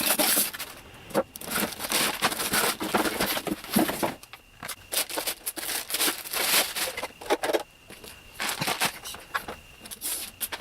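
Packaging being handled and opened: plastic and paper crinkling and rustling in irregular bursts.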